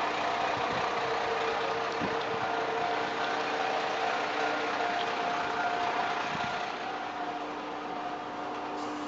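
Diesel railcar engine running steadily at idle, a constant hum with a few held tones under a rushing haze, heard from inside the railcar.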